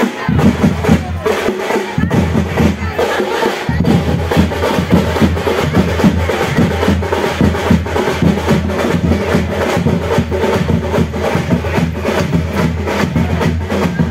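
Loud festival drumming: several drums playing a fast, steady beat, with deep strokes underneath.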